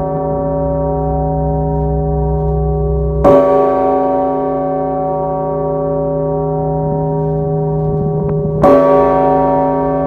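Large Russian-style bell rung by pulling its clapper with a rope: two strokes about five seconds apart, a little over three seconds in and near the end. Each stroke rings on, its deep hum and many overtones holding steady until the next.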